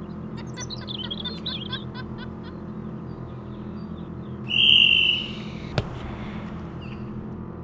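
Birds chirping, then a single short, loud blast of a referee's whistle for the penalty, and about a second later one sharp knock of a football being kicked. A low steady drone runs underneath.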